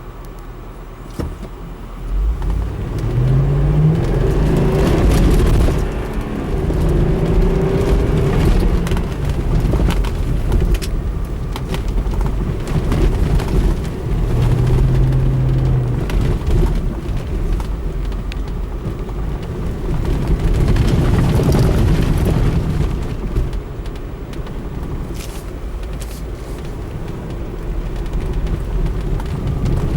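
Mercedes-Benz ML SUV engine revving under load while driving off-road, its pitch rising and falling several times over a steady low rumble.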